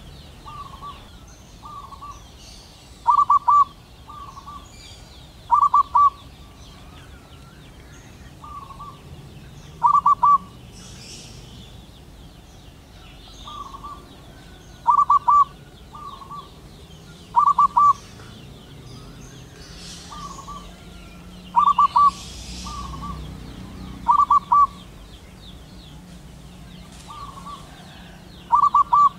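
Male zebra dove singing, the staccato cooing song used to call a female: short bursts of rapid notes repeated every two to three seconds, some loud and some softer.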